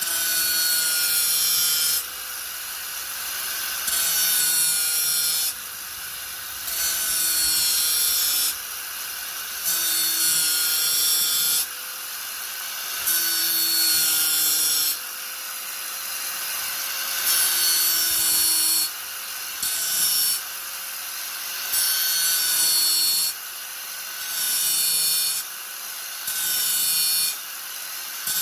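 Angle grinder running with a steady whine, its disc biting into the workpiece in repeated loud passes of one to two seconds each, about a dozen times.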